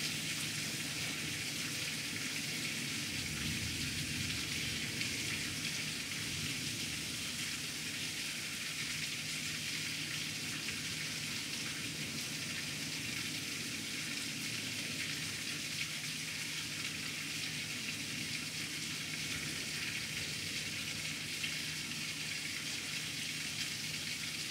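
Heavy rain pouring steadily onto pavement and standing water, a dense, even hiss, heard from indoors through a glass door.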